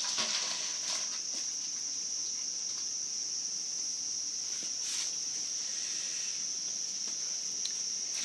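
Crickets chirping in a steady high-pitched drone, with a few brief noises near the start and about five seconds in.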